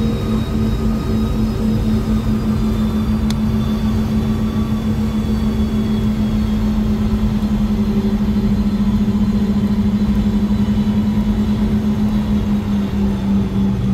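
Boeing 717-200's two rear-mounted Rolls-Royce BR715 turbofans at taxi power, heard inside the cabin: a steady low drone with a few held tones. About halfway through, two close low tones start beating against each other, giving a slow pulsing throb.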